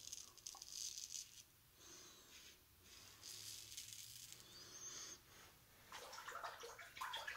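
Safety razor scraping through lathered stubble in faint, short strokes on a second pass across the grain; near the end, water splashing as the razor is rinsed.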